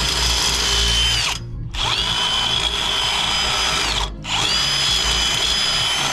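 Cordless drill spinning a bit in a freshly enlarged hole in an aluminum tube, smoothing off its sharp edges: a steady high whine over a rasping hiss, in three runs that stop briefly about a second in and again about four seconds in.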